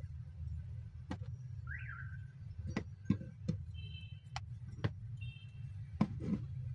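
Scattered sharp clicks and taps as a screw and a cordless drill are handled against a small wooden block, over a steady low hum. A short high chirp sounds about two seconds in, and brief high tones sound twice near the middle.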